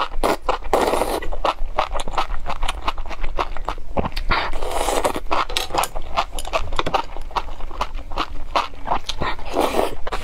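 Close-miked eating of chili-covered enoki mushrooms: wet chewing and smacking, broken by three longer slurps of mushroom strands, about a second in, around five seconds in and near the end.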